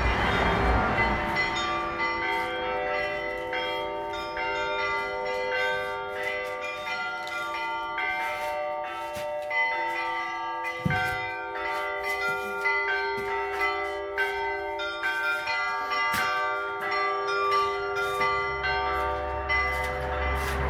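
Church bells ringing: a peal of many overlapping strokes over long, ringing tones, with a low rumble coming in near the end.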